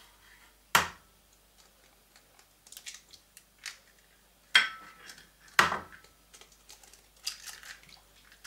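Eggs being cracked: three sharp knocks of eggshell against a hard edge, the last two a second apart, each followed by faint crackling as the shell is pulled open.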